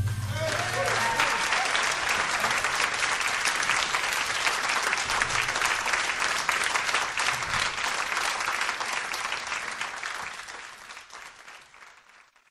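Audience applauding at the end of a live organ blues number, the clapping fading out near the end.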